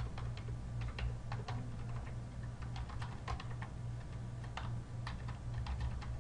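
Typing on a computer keyboard: irregular runs of keystrokes over a steady low hum.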